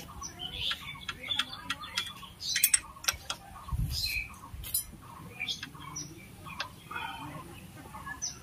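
Birds chirping and squawking, with sharp clicks and taps scattered throughout and a loud cluster of them about two and a half seconds in.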